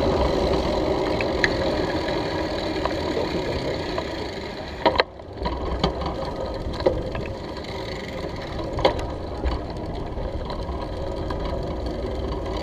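Steady rumble of a bicycle riding over brick paving, heard through a handlebar-mounted camera, with a few sharp knocks from bumps in the paving.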